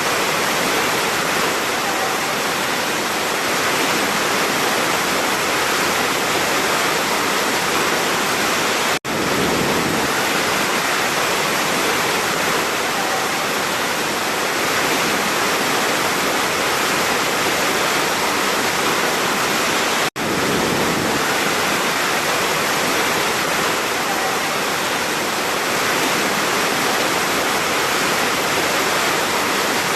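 Large waterfall: a steady, dense rush of falling water, broken twice by a split-second gap, about 9 and 20 seconds in.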